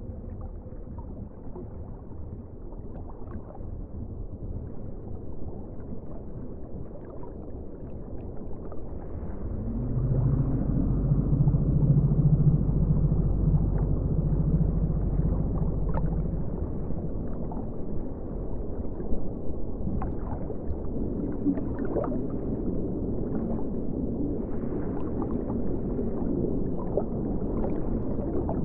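Low, murky ambient drone with a water-like rumble, swelling louder about ten seconds in.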